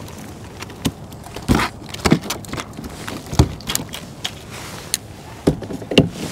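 Irregular knocks and clatter on a plastic fishing kayak's deck, about eight sharp hits, as a freshly landed fish is brought aboard and the rod and gear are handled.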